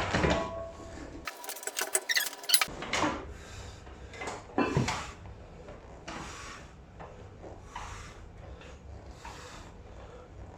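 Gym machine clanking and rattling in a few sharp bursts, followed by hard, regular breathing during a leg-extension drop set.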